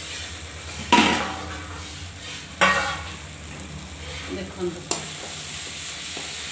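Marinated chicken sizzling in onion-tomato masala in a metal kadai while a metal spatula stirs it. The spatula scrapes against the pan three times: about a second in, again near the middle, and once more lightly near the end.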